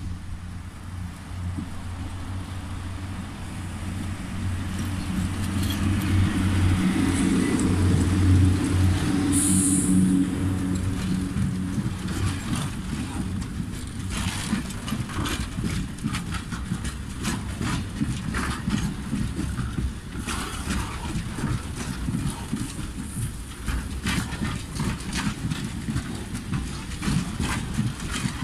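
Electric locomotive hauling a freight train passes at speed. Its steady low hum grows louder and peaks about ten seconds in, with a brief high hiss near the peak. A long string of open-top freight wagons then rolls by, rumbling, with irregular clatter and knocks of wheels over the rail joints.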